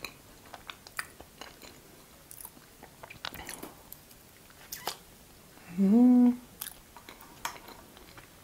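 Close-miked chewing of Napoleon cake, its flaky pastry layers and cream giving soft crunches and wet mouth clicks. About six seconds in comes a short hummed "mmm", the loudest sound.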